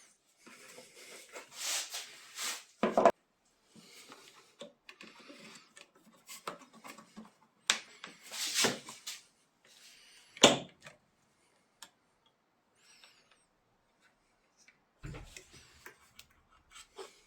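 Hand work with tools and parts: irregular rubbing and scraping, with a few sharp knocks and clicks, the loudest knocks about three seconds in and about ten seconds in. No engine is running.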